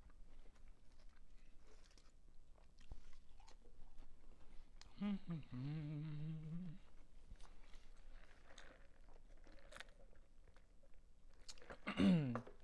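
Close-up chewing and biting of fast food: a burger and fried sides, with small wet mouth clicks and crunches. A hummed "mm" runs for a second or two about five seconds in, and a short vocal sound comes near the end.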